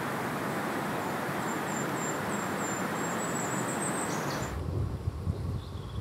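Outdoor ambience: a steady rushing hiss with a faint run of quick, high chirps, typical of insects, through the middle. A little past four seconds in it cuts to a lower, uneven rumble.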